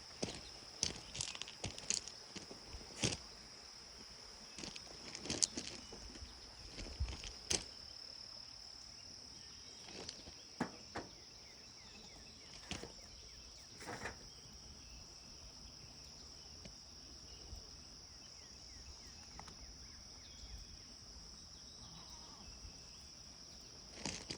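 Steady high-pitched insect chorus, typical of crickets, with scattered sharp clicks and knocks that come thick in the first eight seconds and only now and then after that.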